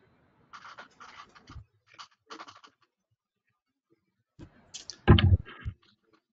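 Scratching and rustling of a call participant's microphone being handled, in short scrapes during the first few seconds, then a louder rubbing and a heavy low bump on the mic about five seconds in.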